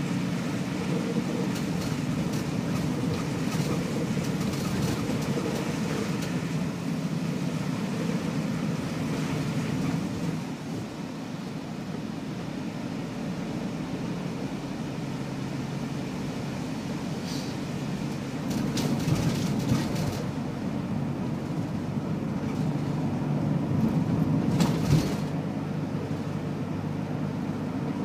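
Mercedes-Benz Sprinter van heard from inside the cab while driving along a wet road: a steady low engine and road rumble with tyre noise. A few brief louder knocks come about two-thirds through and again near the end.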